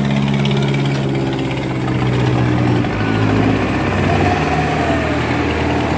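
Diesel engines of two Farmtrac 6055 tractors running hard under heavy load, pulling against each other in a back-to-back tug-of-war. The engine note drops to a lower pitch about three seconds in.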